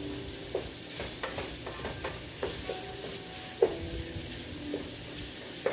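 Ground beef sizzling as it browns in a frying pan, with a wooden spatula stirring and chopping it and knocking against the pan at irregular intervals, each knock leaving a short ring. One knock about two-thirds of the way through is louder than the rest.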